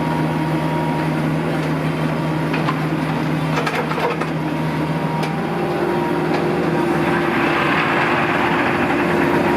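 A large engine running steadily. About halfway through its note steps up and it grows louder near the end, with a few sharp knocks and clatters a little before the change.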